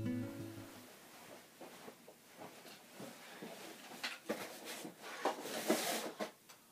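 Guitar intro music dies away in the first second. Then, after a quiet stretch, a few short knocks and scrapes come between about four and six seconds in, as cardboard shipping boxes are lifted and set down on a wooden table.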